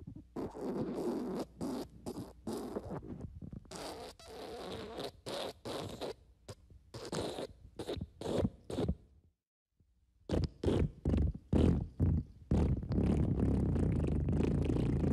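Fart sound effects: a string of short farts in quick succession, a brief pause just past the middle, then a fast run of short bursts that gives way to one long unbroken fart near the end.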